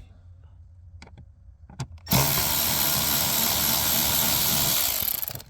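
A cordless drill-driver with a Torx T20 bit runs steadily for about three seconds, backing out a trim-panel screw, after a few small clicks as the bit is set in place.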